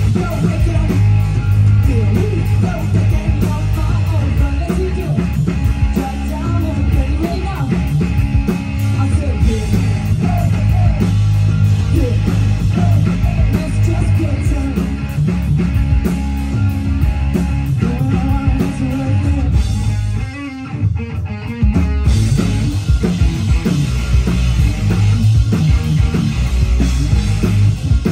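Live punk rock band playing: a woman's lead vocals over distorted electric guitar, bass guitar and drum kit. About twenty seconds in, the band drops out for a short quieter break of a second or two, then comes back in full.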